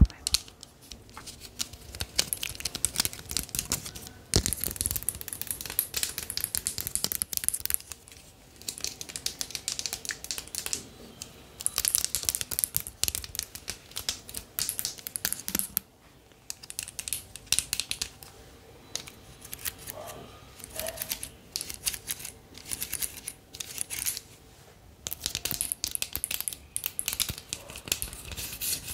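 Close-miked crinkling and crackling from something being handled, coming in bursts of a few seconds with short pauses between them.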